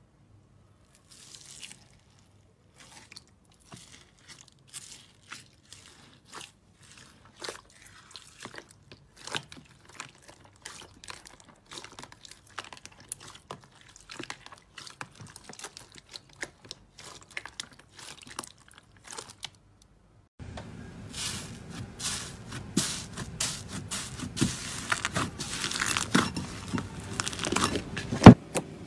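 Hands pressing and kneading bead-filled slime, giving sparse crunchy crackles and small pops. About twenty seconds in it changes to pink fluffy slime being squished, with denser, louder squelching and popping over a steady low hum.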